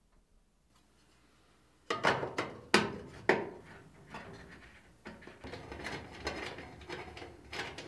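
Sheet-metal terminal-block access cover on the back of an electric clothes dryer being handled and fitted into place. Starting about two seconds in come four sharp metallic clicks and knocks, then lighter rattling and rubbing.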